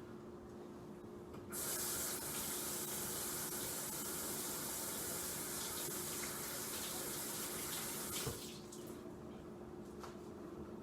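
Kitchen sink tap running for about seven seconds while hands are washed after handling raw ground beef, turned on about a second and a half in and shut off near the end.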